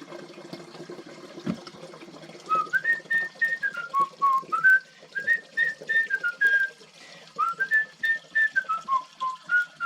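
A person whistling a tune, starting about two and a half seconds in, over the soft sound of water running into a water-filter container that is being filled.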